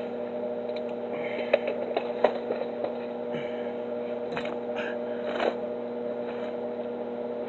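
Steady electrical hum from an idling transformer stick welder, the Miller Thunderbolt XL, switched on but not yet welding, with a few light knocks from handling.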